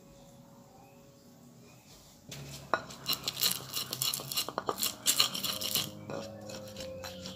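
Soft piano music, then from about two seconds in a wooden pestle crushing and grinding bird's-eye chilies, palm sugar and salt in a clay mortar (cobek): rapid, irregular scraping and knocking.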